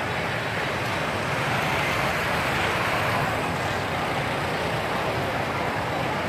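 Steady street noise of motorbikes running past along a road, an even rush with no single event standing out.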